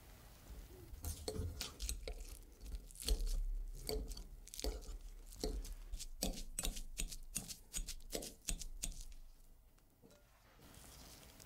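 Wire potato masher crushing peeled hard-boiled eggs in a glass bowl: a quick, uneven run of squishy strokes and sharp clicks, dying away near the end.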